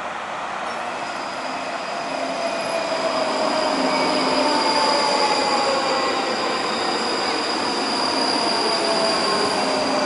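ScotRail electric multiple unit running along the platform line. Its rumble builds over the first few seconds as it comes alongside. A steady high-pitched squeal runs over it, with lower whines that fall in pitch as the carriages pass.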